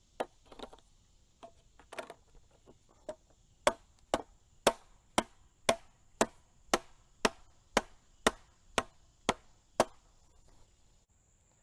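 A hammer driving a raised garden bed's stacking stakes into the ground. It starts with a few light, irregular taps, then settles from about a third of the way in into a steady run of about a dozen harder blows, roughly two a second, that stops shortly before the end.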